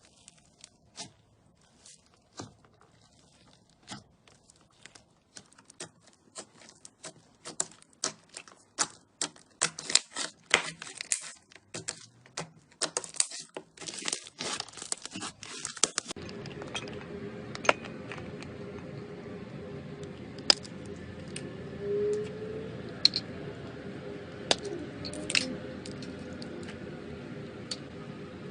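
Crunchy slime being pressed and stretched, crackling and popping in quick runs that grow denser and louder through the first half. Partway through, the sound changes to a steady hiss with only scattered pops.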